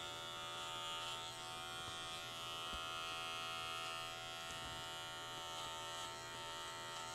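Electric dog-grooming clippers fitted with a #40 blade running with a steady buzz as they shave hair close to the skin.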